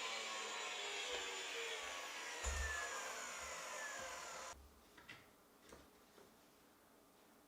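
A power tool's motor winding down, its whine falling slowly in pitch, cut off abruptly about four and a half seconds in, followed by a few faint clicks.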